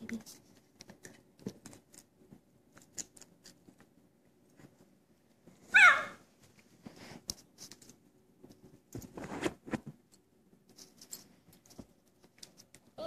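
A husky puppy gives one short, high yip about six seconds in, and a rougher, noisier vocal sound follows around nine seconds, among faint scattered clicks.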